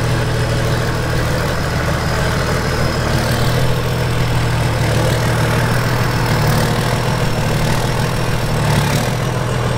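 An old excavator's diesel engine running steadily.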